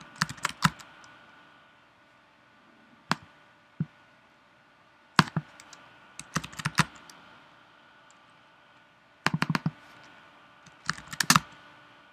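Computer keys and clicks tapped in several short bursts a few seconds apart, single clicks and quick runs of three or four.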